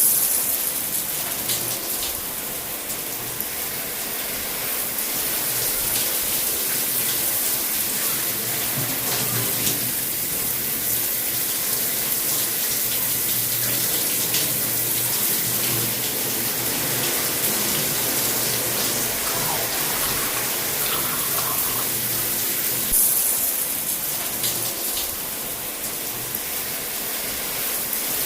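Shower running: water spraying steadily and splashing, with a brief louder rush near the end.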